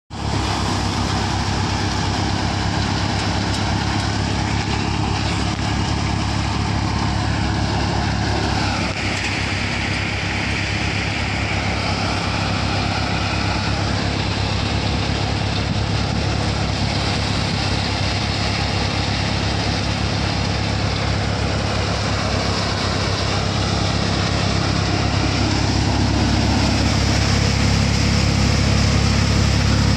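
Tractor-powered threshing machine running steadily while threshing a crop, with the tractor engine's steady hum beneath it; slightly louder near the end.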